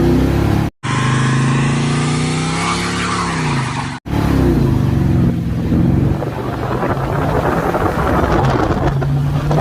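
1973 Plymouth Road Runner tribute car accelerating hard, heard from the driver's seat. The engine note climbs and then drops as the automatic transmission shifts up. The sound cuts out briefly twice, about a second in and again about four seconds in, and from about halfway through a rushing wind and road noise grows over the engine.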